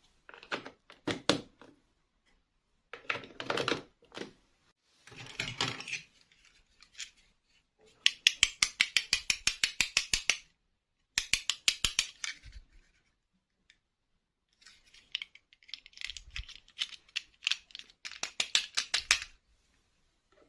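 Small plastic toy parts being handled: short rustling and knocking, then runs of rapid light clicks, about five a second, in several bursts.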